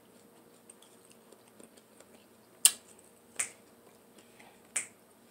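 Three sharp lip smacks or mouth clicks from a person eating close to the microphone, the first about two and a half seconds in and the others over the next two seconds.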